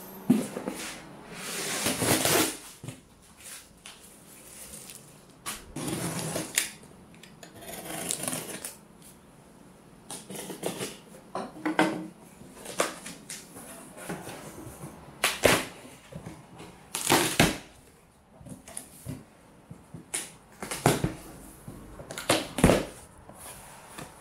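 A taped cardboard shipping box being handled and opened by hand: cardboard scraping and rustling and packing tape pulling loose, in irregular bursts with a few sharp knocks and quieter gaps between.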